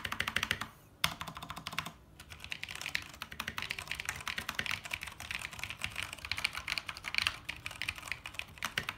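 Typing on a Keycool K5 mechanical keyboard with Cherry MX Brown switches: fast, dense key clicks, two short bursts and then a long unbroken run. The keys' damping nubs have been clipped off, which the typist expects to make the keys bottom out more crisply.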